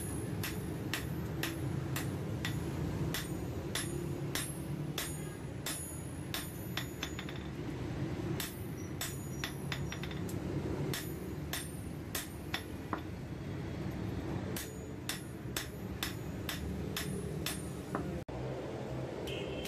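Hand hammer striking a steel knife blade, forged from an old file, on a steel block anvil. Ringing metal-on-metal blows come about two or three a second, in runs broken by brief pauses.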